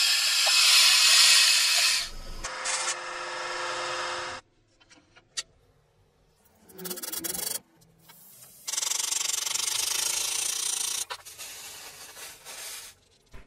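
Workshop tool sounds in quick cuts: a drill press boring into a stag-antler knife handle for about the first two seconds, then a quieter steady run of the tool. After a stretch of near silence with a few small clicks, another steady noisy tool run starts about nine seconds in and breaks into shorter bursts near the end.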